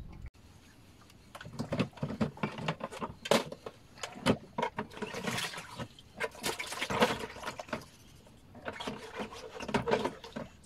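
Irregular clicks and knocks of a slow-jigging rod and reel being worked aboard a small fibreglass boat.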